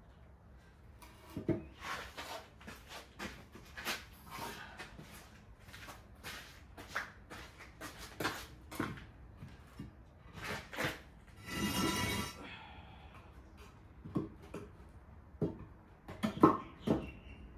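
Timber sleepers being handled and shifted into place: a string of irregular wooden knocks and clunks, the loudest few near the end, with a brief whine lasting about a second partway through.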